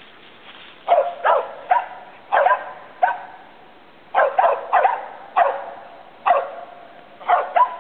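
Mountain feist squirrel dogs barking up a tree: sharp, short barks in quick clusters of two or three, starting about a second in. This treed barking tells the hunter that the dogs have a squirrel up the tree.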